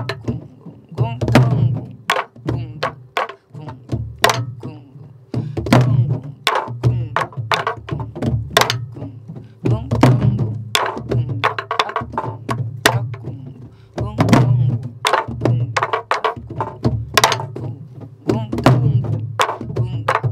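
A group of sori-buk (Korean pansori barrel drums) played together in the jungjungmori rhythm. Deep booms from palm strokes on the drumheads alternate with sharp cracks of wooden sticks on the drums' heads and shells, repeating in a steady cycle.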